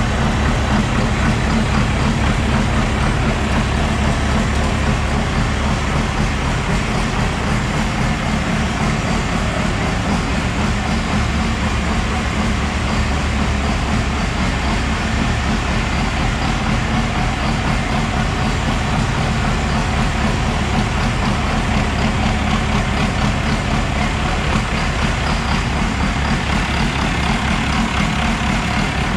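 12-valve Cummins turbodiesel in a rat rod, idling steadily after its rebuild.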